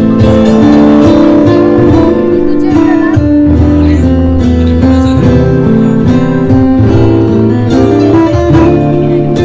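Live instrumental break of a slow Malay pop ballad: acoustic guitar strummed over held electric keyboard chords and bass notes.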